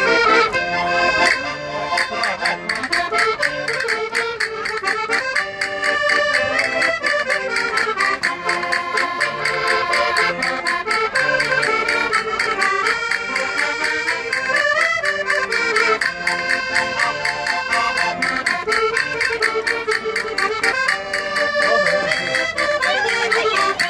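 Portuguese diatonic button concertina playing a lively folk tune, with a steady bass pulse under the melody. Quick, rhythmic clicking of hand-held castanets runs along with it.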